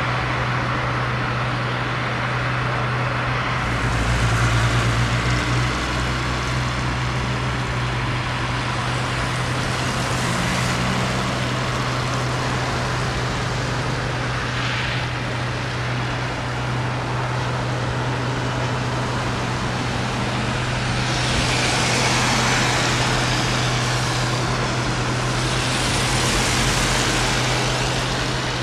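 Fire engine's pump engine running steadily under a constant hiss of hose spray and steam off the burning car. A low rumble swells briefly about four seconds in, and the hissing surges louder twice near the end.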